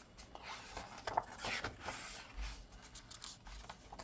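Pages of a photo book being turned and handled: a series of soft paper rustles and swishes, with a dull low bump about two and a half seconds in.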